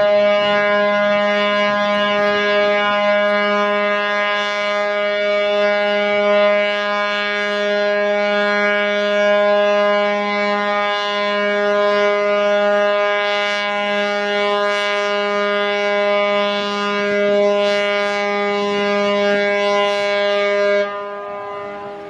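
Ship's horn sounding one long, steady blast that cuts off suddenly about a second before the end. It is the horn of a ship being driven up onto the beach for breaking.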